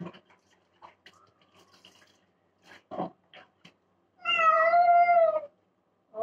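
A domestic cat gives one long, loud meow held at a steady pitch for over a second, about four seconds in, while it is being bathed. Before it there are faint splashes and small taps of water on a wet concrete floor.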